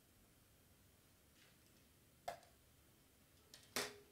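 A few light plastic clicks and taps from small craft tools, such as a tape-runner dispenser, being picked up and handled on a cutting mat: a sharp click about halfway through, then a louder double click near the end.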